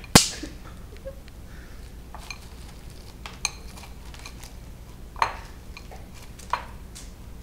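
Wrapped hard candies clattering against a ceramic bowl and a tiled countertop as a baby's hands rummage through them. A sharp clack right at the start, then a few scattered lighter clicks and knocks.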